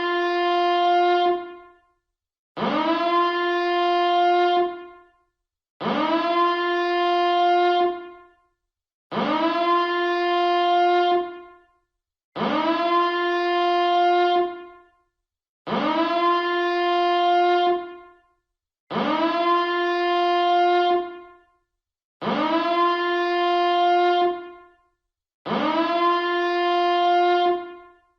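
Alarm siren sounding in repeated blasts, nine in all. Each blast swoops quickly up to a steady, horn-like tone, holds for about two seconds, then cuts off, with about a second of silence before the next.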